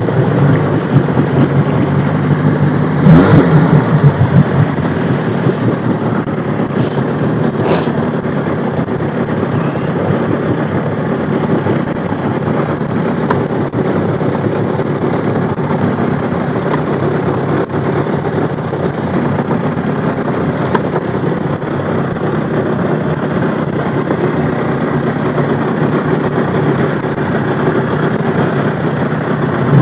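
Jet ski engine running steadily under way, with a brief rise in pitch about three seconds in.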